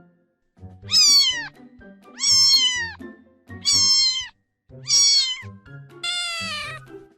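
A domestic cat meowing five times in a row, each meow about half a second to a second long and falling in pitch at its end.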